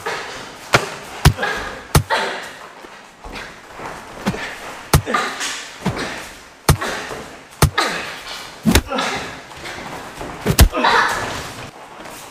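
Punches from fingerless MMA gloves landing in sparring: about a dozen sharp slaps and thuds at irregular intervals, some in quick pairs. Breathy grunts and exhalations from the fighters come between the hits.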